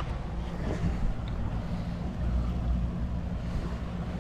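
Steady low rumble of wind and water as a rigid inflatable boat, its engine dead, is towed across open water, with wind buffeting the microphone.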